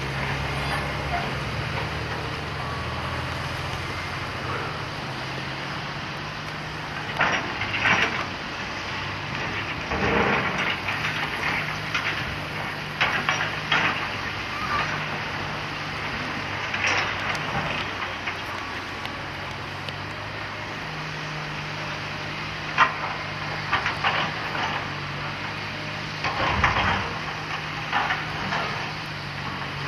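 Komatsu PC300 hydraulic excavator's diesel engine running, its note stepping up and down as the hydraulics are worked. Intermittent crashes and clatter of demolition debris, wood and rubble, are scooped and dropped into a steel dump trailer.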